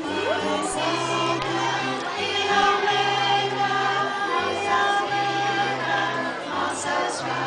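Music with a choir of voices singing together over a low bass line that rocks between two notes about every second.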